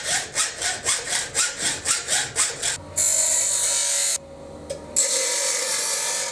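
Hacksaw cutting flat steel bar by hand, quick rhythmic rasping strokes about four a second, done by hand for lack of a cut-off wheel. About three seconds in it gives way to a steady, loud whirring noise with a faint hum that cuts off for about a second and then starts again.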